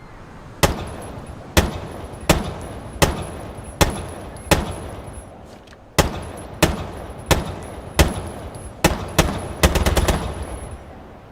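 M12 submachine gun firing a string of single shots, each with a short echoing tail, spaced a little under a second apart, then a quick burst of several rounds near the end.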